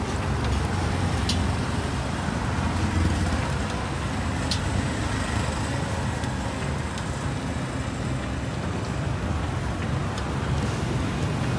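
Steady low rumble of street traffic, with a couple of faint sharp clicks.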